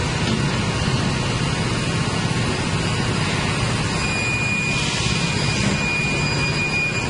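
Automatic vertical foam bandsaw with a scallop blade running in its automatic cutting cycle: a steady mechanical rush, joined about four seconds in by a thin high whine.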